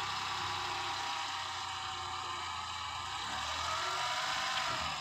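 Maruti Suzuki Alto's small petrol engine running at low revs, steady, with a slight rise in revs about three to four seconds in.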